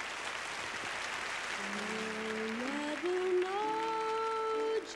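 Audience applause, thinning out as music comes in about a second and a half in: sustained notes that climb step by step and swell to the loudest part near the end.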